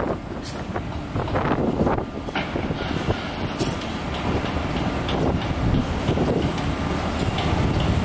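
Construction-site din: the diesel engines of cement mixer trucks running, with scattered knocks and clanks throughout.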